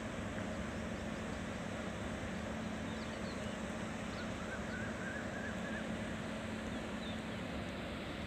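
Steady outdoor background noise with a constant low hum, and a faint wavering chirp about halfway through.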